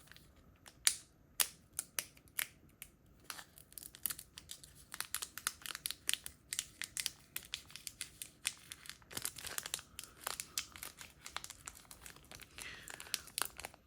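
Foil Pokémon booster pack wrapper crinkling and being torn open, a scatter of sharp crackles with a denser crinkling stretch near the end.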